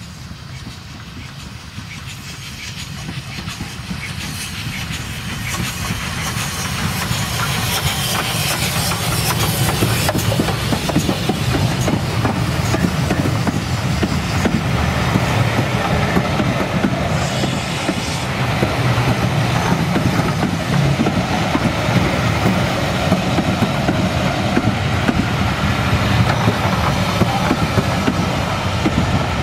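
Steam-hauled passenger train approaching and passing close by. The sound grows over the first several seconds as the locomotive nears and goes by, then stays loud as a long rake of coaches rolls past with the clatter of wheels on the rails.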